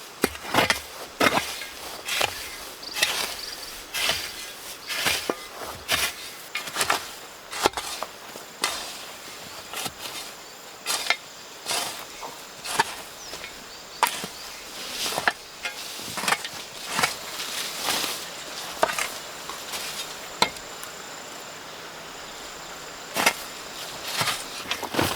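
Irregular series of sharp knocks and taps, roughly one or two a second, with a steady high insect trill in the background through the second half.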